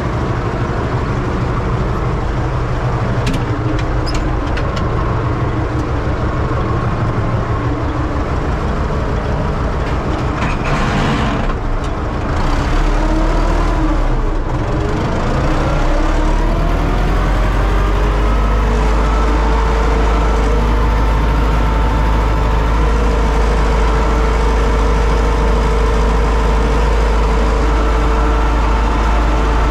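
Universal U650 tractor's diesel engine running, heard from inside the cab. A little under halfway through it revs up with a rising pitch, then holds a steady higher speed while pulling the plough through the field.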